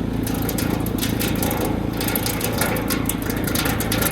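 Heat pump outdoor unit running after a defrost cycle, its fan blowing hard, with a steady low hum and rapid crackling of air gusting against the microphone.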